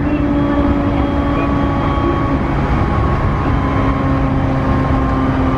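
Running sound inside the motor car of a JR East E531-series electric train at speed: a steady rumble of wheels on rail under a steady whine from the traction motors and gears, holding nearly constant pitch.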